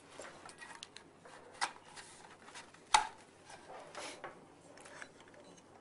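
Faint handling sounds of monitor cables being tucked into a monitor arm's cable management channels: soft rubbing with scattered light clicks, the sharpest about three seconds in.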